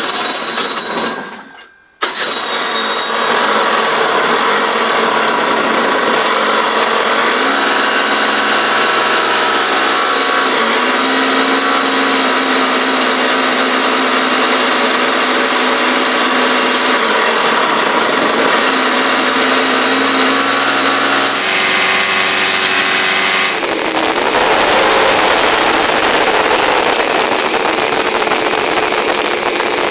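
The 48-cylinder Kawasaki-based motorcycle engine is being started with an auxiliary donkey engine. A brief first attempt dies away, then about two seconds in a loud, continuous engine run begins. Some twenty seconds in it turns rougher and noisier as the engine smokes.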